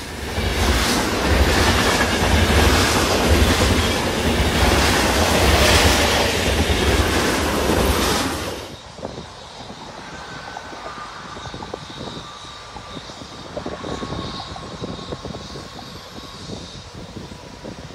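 Train passing close by: a loud rumble with clattering wheels on the rails, which cuts off sharply about eight and a half seconds in. A much quieter background of wind and road traffic follows.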